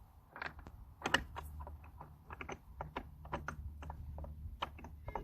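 Irregular clicks and clinks of metal transfer-case parts and tools being handled, the sharpest about a second in, over a low steady hum.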